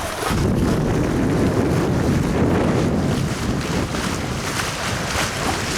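Steady wind buffeting the microphone aboard a sailing smack under way, over a wash of water.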